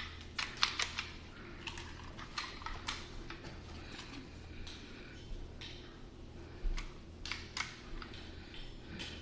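Scattered light clicks and rattles of a car seatbelt assembly being handled, over a steady low hum.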